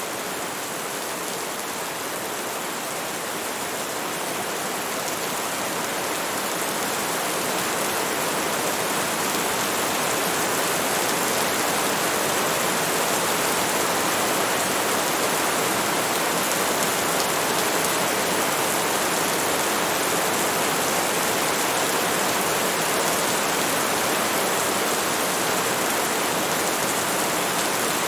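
Rainstorm: heavy rain falling steadily as a dense, even hiss that swells gradually over the first ten seconds or so, then holds level.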